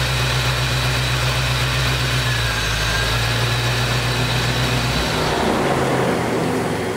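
1988 Chevrolet Corvette's L98 V8 idling steadily on a hot restart after a 20-minute heat soak with its new fuel pressure regulator, then switched off about five seconds in; a fainter hiss lingers and fades after.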